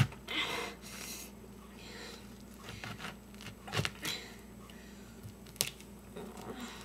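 Small kitchen knife cutting through and prying apart a pomegranate's rind: scraping and crunching of the blade in the fruit, with a few sharp clicks.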